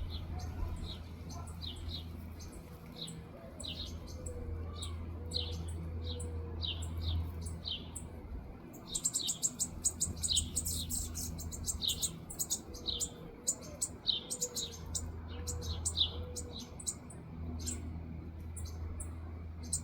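Baby birds chirping: short, high, downward-sliding chirps about twice a second. About halfway through they break into a quick run of rapid, shriller begging calls, typical of nestlings being fed.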